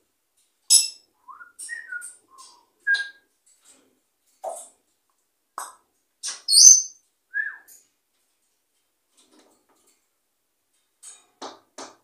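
African grey parrot whistling and chirping: a string of short calls and clicks with a few brief whistles that slide in pitch, the loudest a high, harsh call a little past the middle, then a few short clicks near the end.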